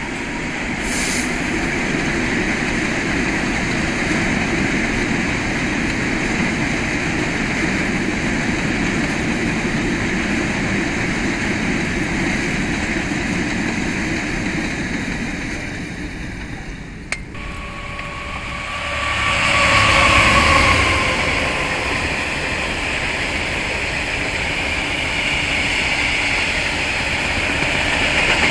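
Freight trains passing on the main line. First a long rake of loaded hopper wagons rolls by with a steady rumble over the rails. After a sudden cut about 17 seconds in, a second freight train of hopper wagons passes closer; it swells louder around 20 seconds with a faint, slightly falling whine, then settles back to a steady rolling rumble.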